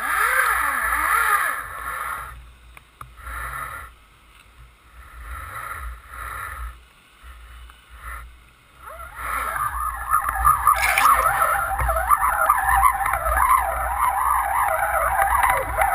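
Underwater noise heard through a camera housing: a boat's engine and propeller noise carried through the water, with gurgling water. It is loud at first, fades and comes in patches, then swells about nine seconds in and stays loud.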